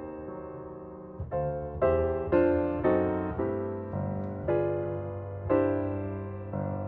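Background piano music, slow notes and chords struck one after another and left to ring and fade.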